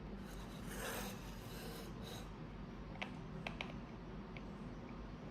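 Soft plastic rubbing and a few small clicks as a plastic alarm clock is handled and its fold-up display is moved.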